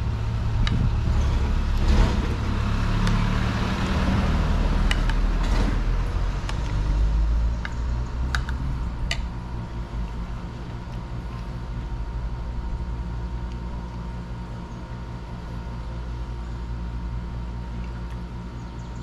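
Low background rumble, louder for the first six seconds or so and then easing, with a few light clinks of a metal spoon against a plate.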